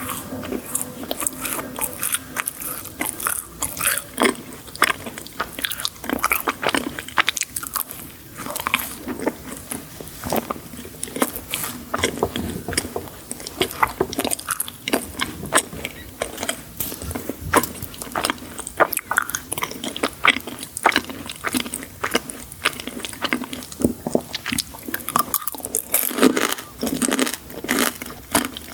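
Close-miked eating sounds: repeated crunchy bites and chewing of sweet desserts, with many sharp crackles.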